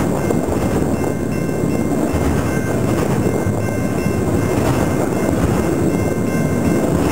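Fast freight train of autorack cars rolling past close by: a steady, loud rumble of steel wheels on the rails, with faint steady high ringing tones above it.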